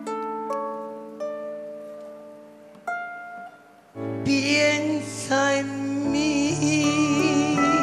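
Harp playing slowly: a few single plucked notes ring out and fade. About four seconds in, fuller chords come in with a deep bass and sustained accompanying tones, and the music grows louder.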